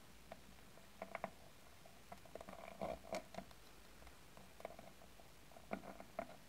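Tiny wooden rolling pin being handled and rolled on a pastry mat over a metal counter, with fingertips and nails touching it: soft scattered clicks and taps in small clusters.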